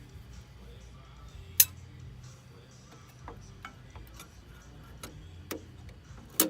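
Sharp metal clicks and clinks from hand work on a planer's blade assembly as parts are loosened and lifted, about half a dozen in all. The loudest comes about a second and a half in, and another comes near the end.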